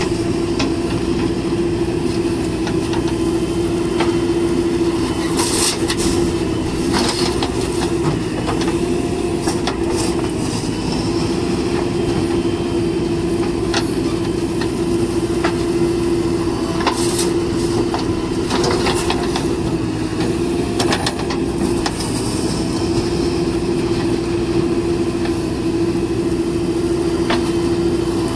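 Heavy diesel vehicle engine running steadily with a constant hum, with scattered knocks and clanks.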